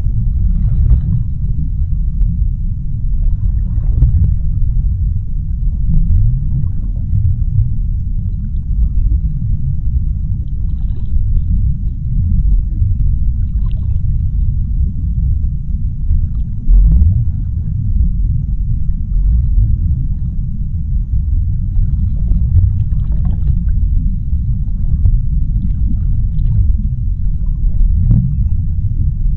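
Underwater ambience: a deep, steady low rumble with faint brief crackles and bubbling scattered above it.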